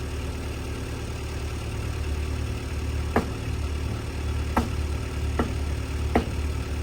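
An engine idles steadily with a low drone. Four sharp knocks come in the second half.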